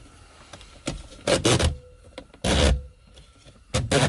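Hard plastic interior trim parts of a BMW E92 seat belt presenter being handled and pushed into place: rubbing and scraping with knocks, in three short bursts, the middle one the loudest.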